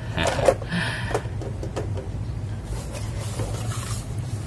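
Packaging and accessories being handled while a keyboard box is unpacked: a few light knocks and rustles, then a stretch of rustling about three seconds in, over a steady low hum.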